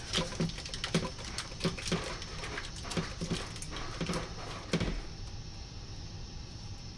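A run of irregular light knocks and clicks, two or three a second, for about five seconds, the loudest near the end of the run, then only a quiet background.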